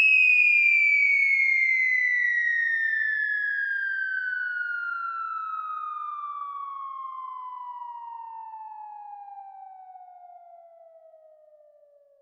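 A single long whistle-like tone gliding slowly and steadily down in pitch while fading away: an anime-style falling sound effect.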